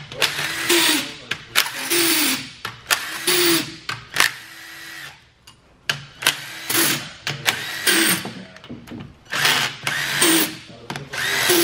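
A cordless power tool whirring in short runs of about a second, about nine in all with a pause in the middle, each run ending in a falling whine as the motor winds down. It is spinning out the long through-bolts of a Mazda 13B rotary engine's housings during teardown.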